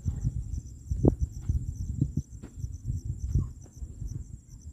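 Insects chirping steadily with a high, rapidly pulsing trill, over irregular low rumbling and a few soft thuds, the strongest about a second in.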